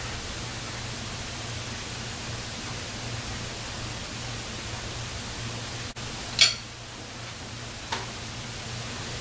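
Steady hiss with a low hum underneath. About six seconds in there is one sharp, loud knock, and a smaller click follows near the end.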